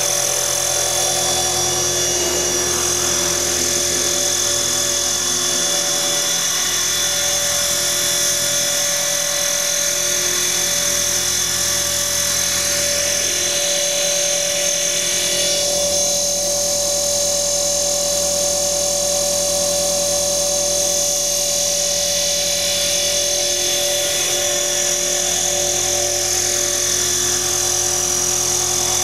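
Align T-Rex 450 XL electric RC helicopter in flight: a steady high motor-and-gear whine with rotor hum, its pitch shifting slightly now and then as it manoeuvres.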